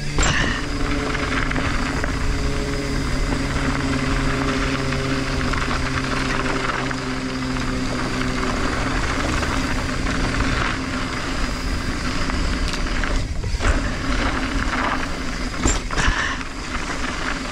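Mountain bike rolling fast downhill on a loose, rocky dirt fire road: a steady rush of wind and tyre noise over gravel. There are a few sharp knocks from the bike hitting bumps, at the start and near the end.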